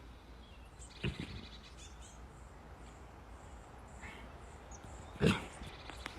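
Heavy breathing close to the microphone: two short, loud breaths, about a second in and just after five seconds in, over a low steady background.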